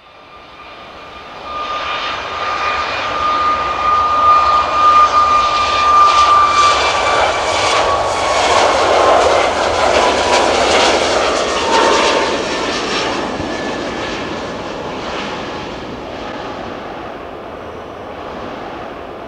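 Jet engines of a Ryanair Boeing 737 MAX 8-200, CFM LEAP-1B turbofans, as the airliner passes by. The noise builds over the first few seconds, peaks in the middle and slowly fades, with a high whine that drops in pitch as it goes past.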